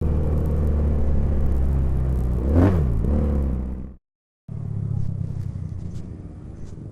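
Custom inline two-cylinder 320 cc motorcycle engine, built from two Honda GL Pro singles, running with a brief rise and fall in pitch about two and a half seconds in. The sound cuts out for half a second at about four seconds and comes back quieter, still running.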